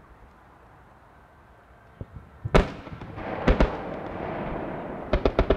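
Fireworks shells bursting overhead: a loud bang about two and a half seconds in, a pair of bangs a second later, then a quick volley of five bangs near the end, with echoing noise between them.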